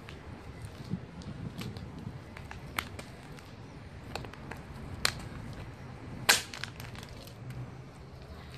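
Small plastic toy car cracking and breaking apart under a sneaker sole on asphalt: a series of sharp cracks and snaps, the loudest about six seconds in.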